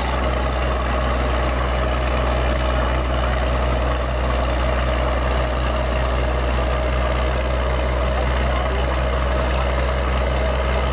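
Truck-mounted borewell drilling rig running steadily, its engine holding a constant low drone, with water and slurry gushing out of the borehole around the drill head.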